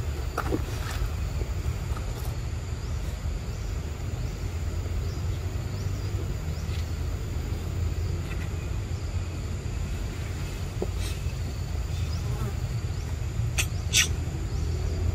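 Forest ambience: a steady high insect drone over a constant low rumble, with a few sharp clicks, two of them close together near the end and louder than the rest.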